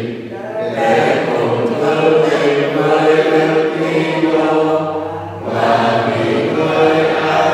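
Slow, chant-like sacred singing, in phrases that pause briefly near the start and again about five and a half seconds in.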